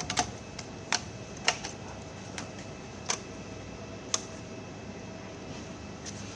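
About six sharp plastic clicks and taps, irregularly spaced and louder in the first half, from the Acer One 10 tablet's plastic parts being handled and fitted back together, over a steady background hiss.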